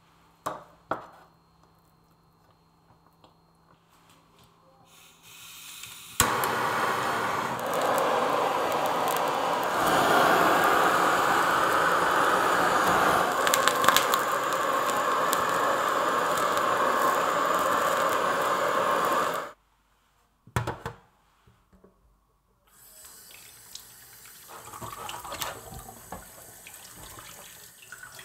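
Kitchen tap running hard into a sink for about thirteen seconds, starting and shutting off abruptly, followed by a couple of knocks and then quieter splashing and dripping water.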